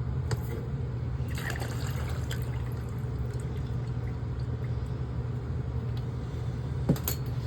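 Water running steadily from a water heater's drain valve into a bucket, with a low steady hum under it and a sharp knock near the end.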